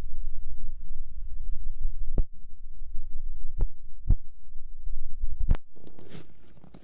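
Cat purring close to the microphone as it is stroked, a low continuous rumble. Four sharp taps sound over it, and it changes and fades near the end.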